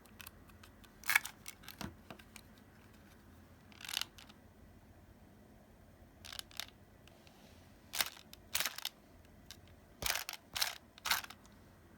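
Scattered short clicks and rustles of small hard parts being handled, about a dozen in irregular clusters, the sharpest about a second in.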